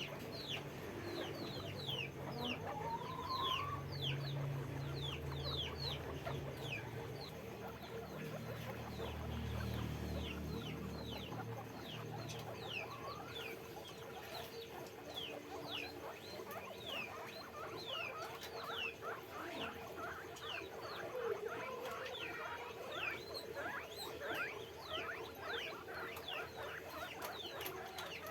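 Several guinea pigs squeaking: a steady stream of short, high, falling squeaks that overlap one another. A low rumble runs under them for the first ten seconds or so.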